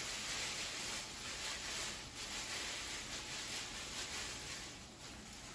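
Disposable plastic gloves rustling and crinkling while ground turkey mixture is rolled into meatballs by hand, a soft uneven rustle that is a little louder in the first two seconds.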